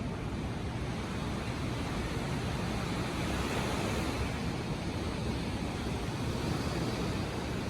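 Ocean surf breaking on the beach, a steady rush of waves that swells a little around the middle.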